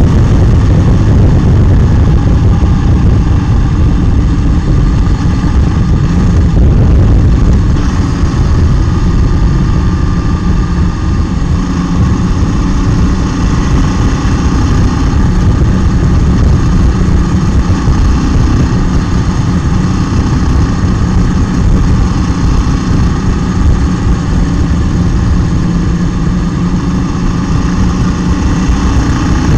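Motorcycle riding at road speed, heard from a camera mounted on the bike: steady wind rush on the microphone, with the engine running underneath, its pitch rising and falling gently with the throttle.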